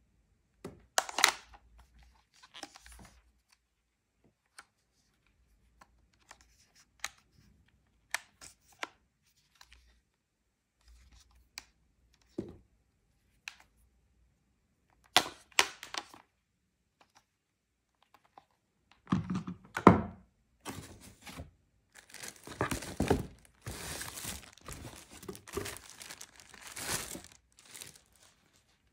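Scattered clicks and light knocks as the plastic and metal parts of an egg cooker are handled, then, from about two-thirds of the way in, a long stretch of rustling and crinkling of packaging and a paper instruction manual.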